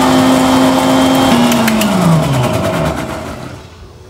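Electric mixer-grinder (mixie) running at full speed, grinding garlic with a little water into a paste. About a second in it is switched off, and the motor's hum falls in pitch as it winds down to a stop.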